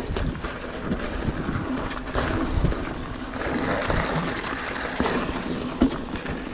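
Mountain bike rolling quickly down a dirt and gravel trail: tyres on dirt, with frequent short knocks and rattles from the bike over bumps, and wind rushing on the microphone.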